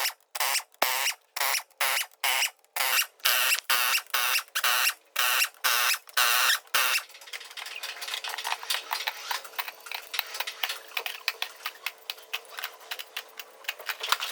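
Hand ratchet wrench clicking as bolts are undone: regular strokes about two a second for the first half, then a faster, lighter run of clicks.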